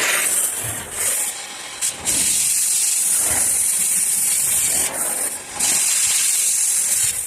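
Cutting torch jet hissing loudly on steel, cutting off grease-filled tubes. It breaks off briefly a few times and starts again.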